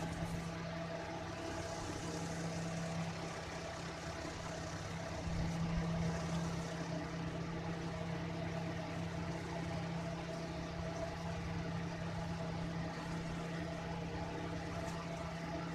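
A steady mechanical hum with a constant low tone, swelling slightly about five seconds in.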